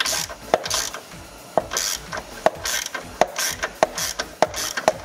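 Hand ratchet wrench with a socket loosening the nut on a car's negative battery terminal, its pawl clicking in repeated short back-and-forth strokes, a little more than one a second.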